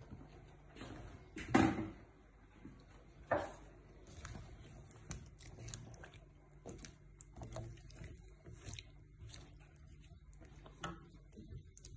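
Cooking handling noises while potatoes are added to the pot: a run of knocks, light clatters and soft squishy sounds. Two louder thumps come about one and a half and three and a half seconds in.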